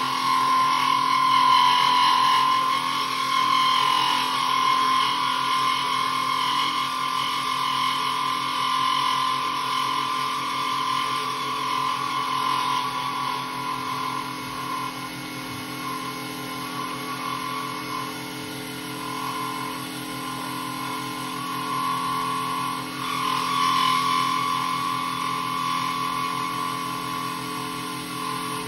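A mini lathe spinning a resin pen blank while a turning gouge cuts it, giving a steady motor hum under a high, wavering cutting whine that fades in the middle and swells again near the end.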